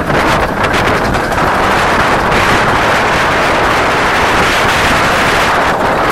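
Wind rushing over the microphone, with the running noise of a moving Romney, Hythe & Dymchurch Railway miniature train, heard from a carriage window.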